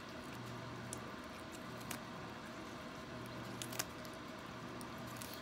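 A cat biting and chewing a red-leaf lettuce leaf: a few faint, sharp crunches over a low, steady room hum.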